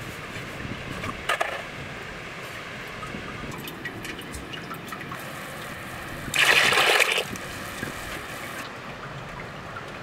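Salt-spring brine poured into a plastic bucket: one short, loud splash about six seconds in, with a smaller slosh a little after one second.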